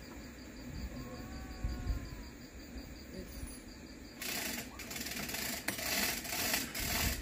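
Faint insects chirping, then about four seconds in a hand-pulled hoist on a truss tower starts rattling, a quick run of metallic clicks about three a second, as it lifts a hanging line-array speaker stack.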